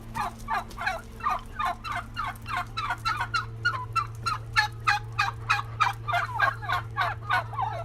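A flock of chickens clucking as they pour out of the coop: many short overlapping clucks, several a second. A steady low hum runs underneath.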